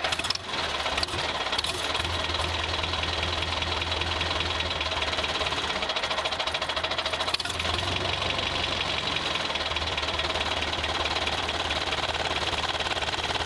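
Small motor of a homemade model farm machine running steadily, with a very rapid, even mechanical clatter.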